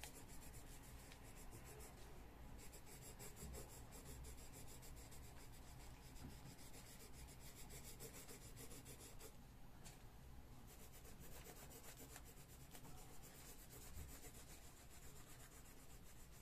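Faint scratching of a coloured pencil on a colouring-book page, in quick back-and-forth shading strokes.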